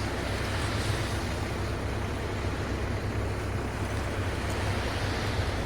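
Steady low engine rumble with a continuous rushing noise over it.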